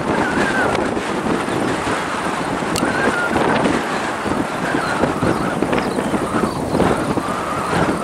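Wind buffeting the microphone in uneven gusts over the steady jet noise of a twin-engine airliner rolling along the runway, with a faint wavering engine whine.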